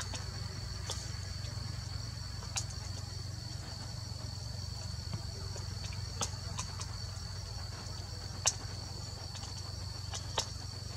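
Insects trilling steadily on one high pitch, over a low hum. A handful of sharp clicks break in, the loudest about eight and a half seconds in.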